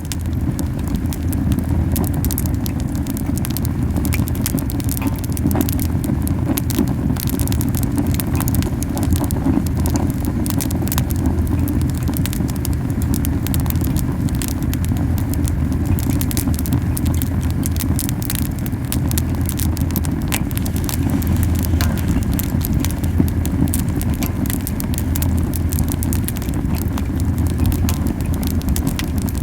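Camellia-wood campfire burning very hot: a constant low whooshing flutter of strong flames under many sharp crackles and pops from the burning wood.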